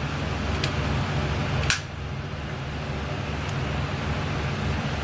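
Two sharp clicks of a hair straightener's plates, about two-thirds of a second and nearly two seconds in, the second louder, over a steady low room hum.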